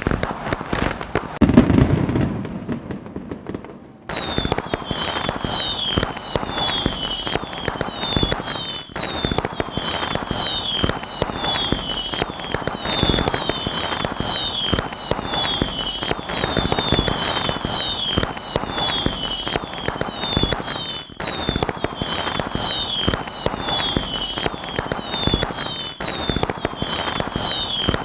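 Fireworks: a loud low boom about two seconds in, then from about four seconds a dense, continuous crackling with many short falling whistles.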